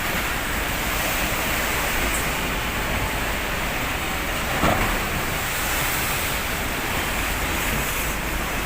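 Steady roar of strong wind and heavy sea waves at a harbour, with wind buffeting the microphone as a constant low rumble. A brief louder gust or splash comes a little past halfway.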